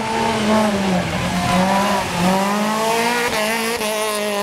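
Rally car engine revving hard on the stage, its note climbing and dropping back a couple of times, then holding high near the end.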